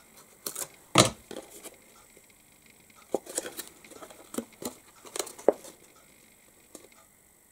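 Cardstock box being handled and pressed together: scattered small clicks, taps and rustles of card and tape, with one sharper click about a second in.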